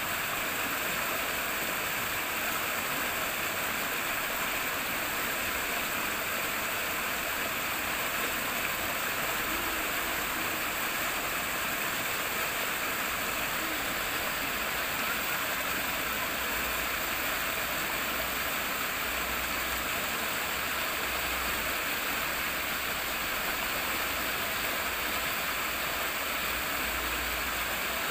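Water rippling and flowing steadily, an even, unbroken rush, with a faint low rumble coming and going in the second half.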